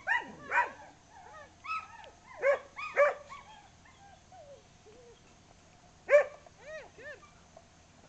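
A dog barking repeatedly, short sharp barks singly or in pairs, the loudest about six seconds in and a few fainter ones in between.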